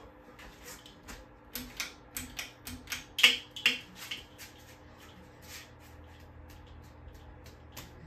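42-inch Menards ceiling fan running with a steady low motor hum. Irregular clicks and taps sound over it through the first half, loudest about three seconds in, then only the hum remains.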